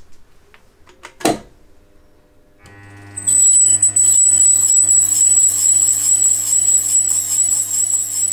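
A click, then about two and a half seconds in a milling machine's spindle motor starts and runs steadily, spinning a coaxial indicator, with a low hum and a loud high-pitched whine.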